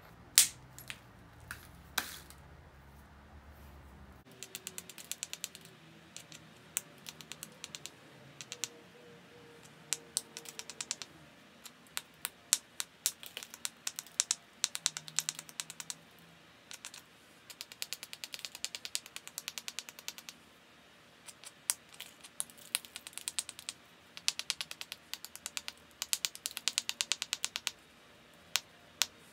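A small stone tool working the edge of a small flint biface held on a leather pad. It makes rapid runs of sharp clicks and scratchy ticks, with a few single louder clicks, as the edge is worked during thinning.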